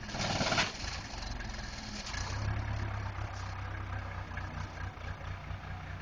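Case 480C backhoe's diesel engine running, pulling harder about two seconds in as the loader arms lift the bucket, with a short burst of hiss about half a second in.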